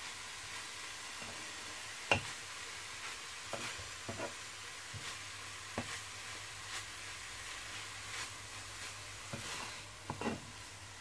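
Ground shrimp sizzling steadily in oil in a stainless steel pan while a spatula stirs it, being fried down until dry. Scattered clicks and scrapes of the spatula on the pan, the sharpest about two seconds in and a few more near the end.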